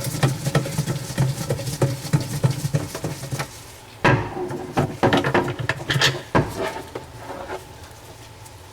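Plastic parts clattering and knocking inside a dishwasher tub as the filter basket is lifted out. There is a low hum in the first few seconds, then a run of louder knocks about four to six seconds in.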